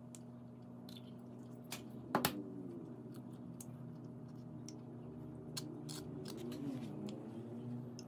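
An egg shell cracked with a sharp double crack about two seconds in, then quieter clicks and soft squishing as the shell is pulled apart and the egg drops into a plastic bowl. A steady low hum runs underneath.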